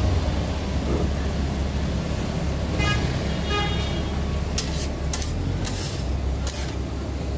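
Metal tongs and a spatula tapping and scraping on a flat-top griddle several times, over a steady low hum. A brief pitched tone sounds about three seconds in.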